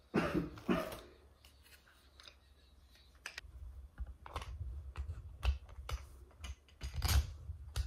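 Plastic parts of a smartphone vlogging hand grip being handled and fitted together: two louder rustling knocks in the first second, then a string of light clicks and taps over dull bumps against the table.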